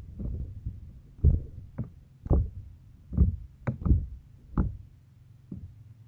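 Slime being squeezed and pressed by hand, giving a string of irregular soft squelches, some with a sharper pop.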